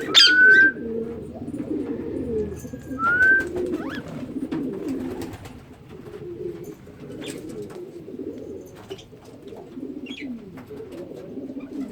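Pigeons cooing continuously, with two short rising whistled bird calls, one at the very start and one about three seconds in, the loudest sounds.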